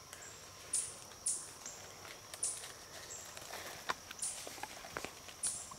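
Short, thin, very high-pitched calls recurring irregularly, about every half second to a second, with a few faint ticks between them.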